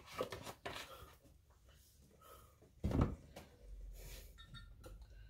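Clicks and knocks of kitchen items handled on a countertop, a plastic oil bottle and a glass measuring cup being moved and set down, with one louder thud about three seconds in. A low steady hum comes in just after the thud.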